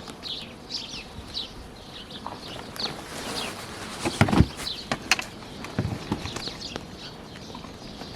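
Carniolan honey bees humming around an opened hive, with small birds chirping repeatedly over it. A couple of knocks come about four and five seconds in, the first the loudest.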